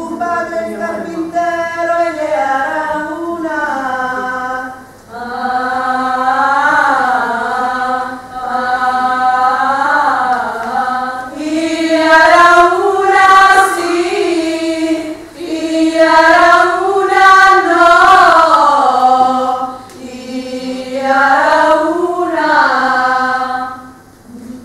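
Women's voices singing unaccompanied in unison: one slow, wavering melody in long held phrases, with short breaks for breath between them.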